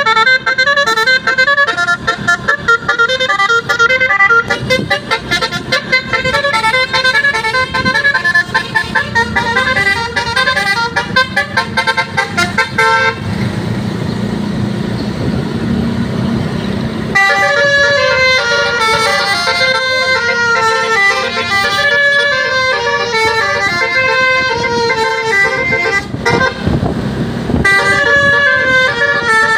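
Bus telolet musical horn (Basuri multi-tone air horn) playing a rapid repeating melody of several tones at once. The melody breaks off twice for a few seconds of rushing noise, about halfway through and again near the end, then resumes.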